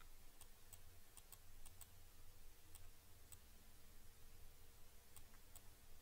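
Near silence: faint room tone with a steady low hum and a scattered series of faint, irregular computer-mouse clicks.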